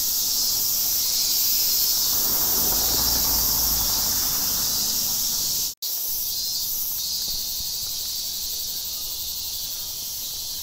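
Steady high-pitched insect chorus, with a low rumble under it in the first half. The sound cuts out for an instant about six seconds in.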